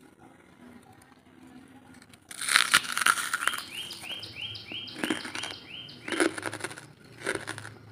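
Hardwood charcoal being bitten and chewed, several separate loud crunches starting about two seconds in. A bird chirps a quick run of short, high rising notes in the middle.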